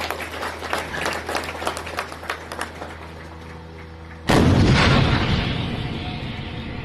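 K-9 Vajra 155 mm self-propelled howitzer firing a single round about four seconds in: one sudden, very loud boom that rolls away over about two seconds. Before the shot, a run of irregular sharp clicks over a low steady hum.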